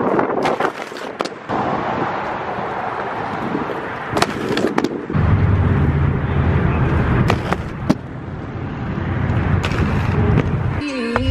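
Skate wheels rolling and rattling over brick pavers and concrete, with several sharp clacks of wheels or frames hitting the ground. From about five seconds in there is a louder, deeper rolling rumble lasting a few seconds.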